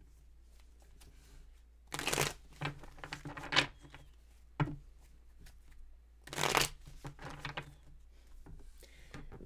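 A deck of tarot cards shuffled by hand: two loud bursts of shuffling, about two seconds in and again just past six seconds, each trailing off into softer card rustles, with a single card tap in between.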